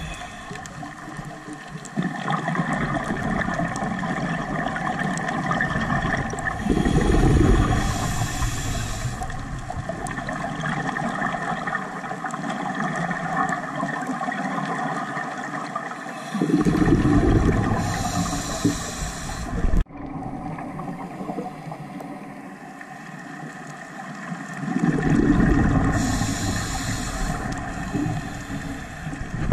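Scuba diver breathing through a regulator, heard underwater: three exhalations of rumbling bubbles about nine seconds apart, each followed by a short hiss from the regulator on the inhale, over a steady underwater hiss. A single sharp click about twenty seconds in.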